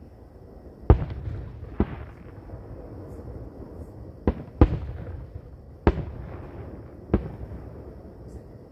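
Aerial firework shells bursting: six sharp bangs at uneven intervals, two of them close together in the middle, several trailed by a short rumble.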